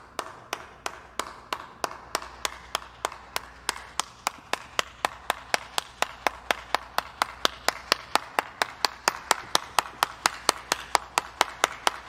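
One person clapping their hands in a steady slow clap, about three claps a second, getting gradually louder.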